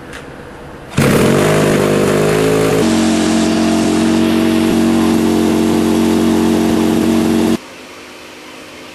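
Small piston engine running on a test stand. It speeds up over about two seconds, runs at a steady high speed, and cuts off suddenly near the end.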